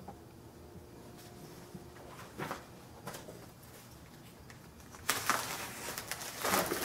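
Paper and plastic packaging rustling and crinkling as it is handled, in short bursts that grow louder and busier over the last couple of seconds.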